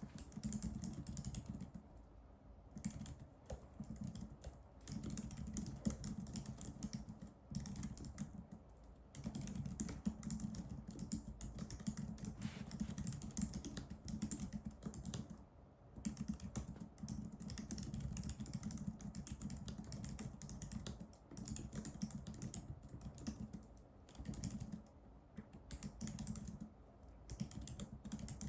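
Typing on a computer keyboard: rapid runs of key clicks broken by short pauses every few seconds.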